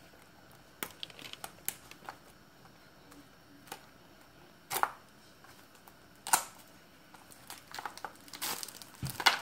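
Clear plastic wrap being torn and peeled off a small plastic toy basket: scattered crinkles and clicks, with louder, sharper tears about five seconds in, about six and a half seconds in, and twice near the end.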